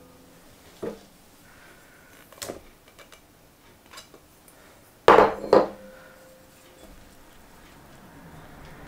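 Kitchen dishes and utensils being handled: a few light clicks and knocks, then two louder knocks a little past five seconds in, the second leaving a brief ringing tone.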